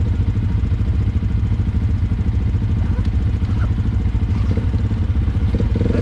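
Small off-road engine idling steadily, with an even low throb and no change in speed.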